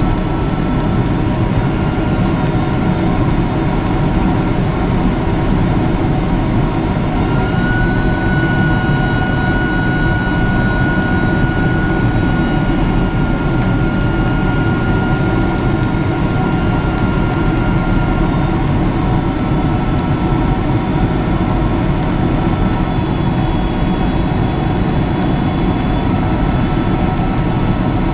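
Airliner cabin noise: the steady, loud roar of the jet engines and airflow heard from inside the cabin, with a thin high whine that rises a little in pitch about eight seconds in and fades out around twenty seconds.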